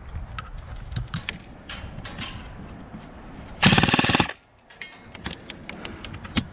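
Electric airsoft light machine gun (KRYTAC LMG) firing one short full-auto burst of rapid shots a little over halfway through, lasting under a second and stopping abruptly. Scattered small snaps and clicks, such as twigs and brush underfoot, come before and after it.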